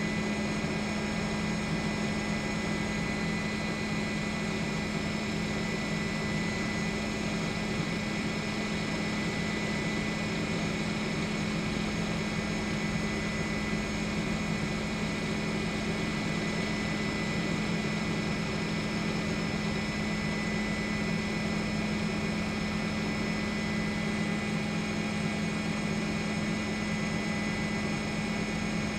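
Steady aircraft engine drone heard from inside the aircraft's cabin, an even hum with constant tones that does not change.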